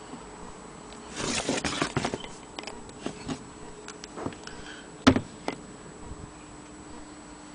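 Handling noise from an antique Jones hand-crank sewing machine being tipped over on a table. About a second in there is a burst of rustling and clattering, then scattered clicks and knocks from its metal parts, with one sharp knock about five seconds in.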